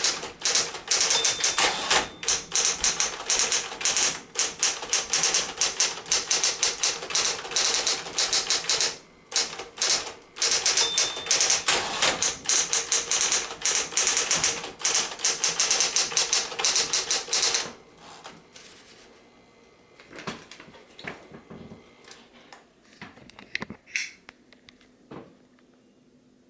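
Smith-Corona Electra 220 Automatic electric typewriter typing fast: a dense run of loud keystrokes with two brief pauses, stopping abruptly about two-thirds of the way through. After that come only a few soft clicks and knocks.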